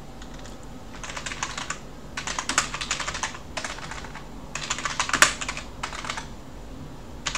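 Typing on a computer keyboard: three quick bursts of keystrokes with short pauses between them.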